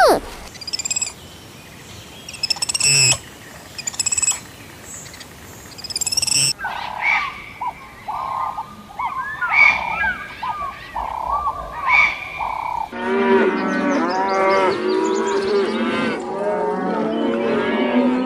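A series of animal calls from several different animals in turn: high chirps first, then repeated short calls, then a dense chorus of many overlapping calls for the last few seconds.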